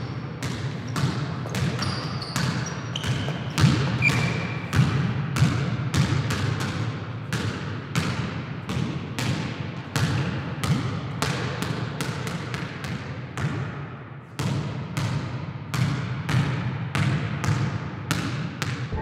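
A basketball bouncing over and over on a hardwood court in an echoing gym, roughly two bounces a second at an uneven pace, over a steady low hum. A few short high squeaks, like sneakers on the floor, come in the first few seconds.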